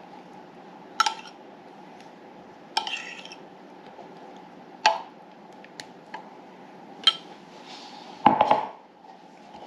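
A spoon clinking and scraping against metal loaf pans and a bowl while topping is spread over meatloaf: single sharp clinks a couple of seconds apart, then a louder clatter near the end.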